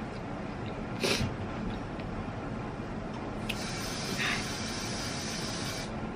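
A person's short sharp sniff or breath about a second in, then a few seconds of airy hissing breath, over a steady background hiss.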